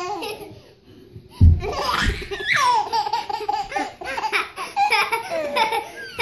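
A baby laughing hard in a long run of short pulses. Near the start of the laughter comes a soft low thump, as of a child landing on floor cushions.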